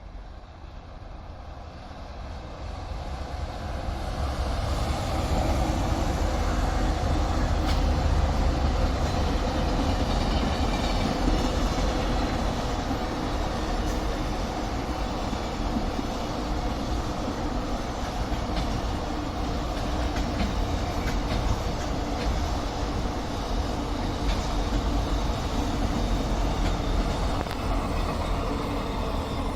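Train running past on the rails: a steady rumble of wheels and cars that builds over the first few seconds as it draws near, then holds loud, with light clicking from the rails.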